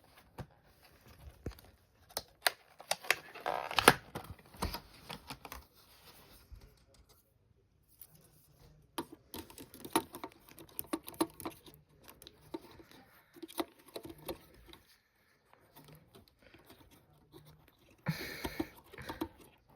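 Irregular small clicks, taps and plastic rustling from handling RAM sticks and their plastic packaging while fitting the memory into the motherboard slots.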